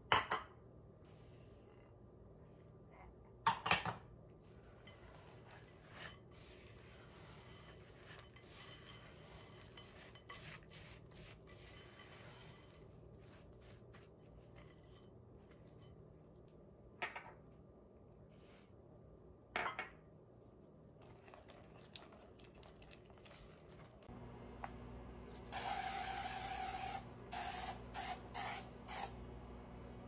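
Silicone spatula stirring peanuts and sugar in a glass mixing bowl, with a few sharp knocks against the glass. Near the end comes a series of short hisses from an aerosol cooking spray.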